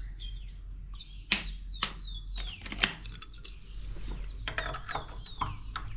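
A series of sharp mechanical clicks and knocks, a few spaced about a second apart and then a quicker cluster near the end, with birds chirping in short falling notes behind them.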